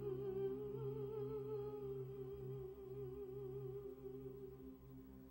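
Background music: a held, wavering melodic tone over a steady low drone, growing quieter toward the end.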